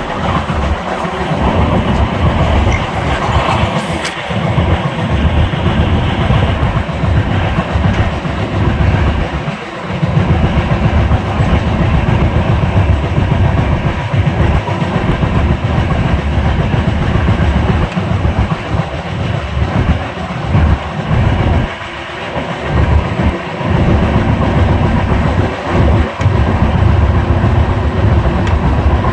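Moving passenger train, its wheels running on the rails in a steady, loud rumble that dips briefly about a third of the way in and again about three-quarters through.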